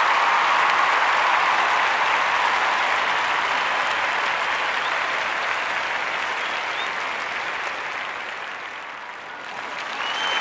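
A crowd applauding with steady clapping. It dips a little about nine seconds in, then swells again.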